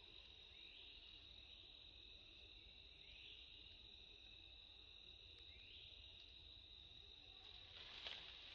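Faint steady insect chorus, a high drone with a rising swell about every two and a half seconds. A brief sharper sound comes near the end.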